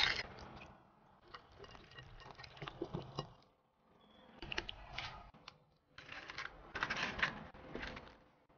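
Kitchen handling sounds in short, uneven bursts of small clicks and scrapes. A wooden spoon stirs marinade in a ceramic cup, then hands rub and handle a marinated whole chicken, with the busiest handling about six to eight seconds in.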